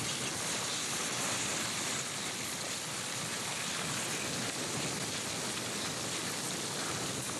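Steady crackling hiss of a slowly advancing pahoehoe lava toe, its cooling glassy crust cracking as the hot interior pushes it forward.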